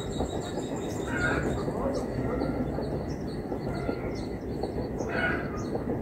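Small birds chirping, quick thin high-pitched notes over and over, with two short lower calls about a second in and near the end, over a loud, steady low rumble.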